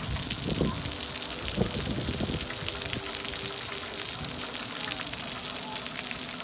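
Splash pad water jets spraying and spattering onto wet concrete, a steady hiss, with a few short low bumps in the first couple of seconds.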